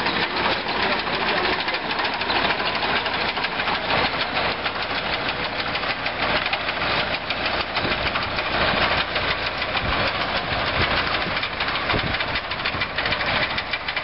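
Tractor engine running steadily while a tractor-mounted potato digger lifts a row of potatoes, with a dense, continuous rattle from the digger's rod-chain elevator and the soil and potatoes riding on it.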